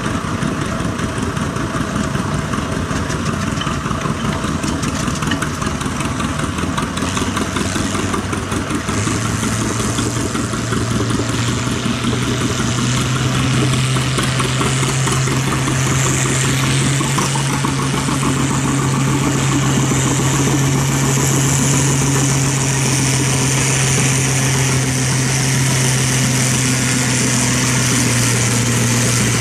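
Farm tractor engine running steadily under load as it pulls a weight-transfer sled down the track; its pitch steps up slightly about nine seconds in, then holds steady and grows stronger.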